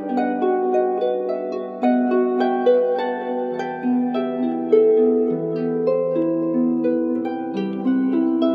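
Background music: a gentle plucked-string melody, harp-like, over held lower notes, running steadily.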